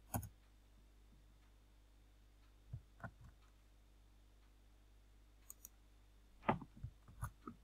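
Faint computer mouse and keyboard clicks: one at the start, a few near the middle, and a quick run of clicks near the end.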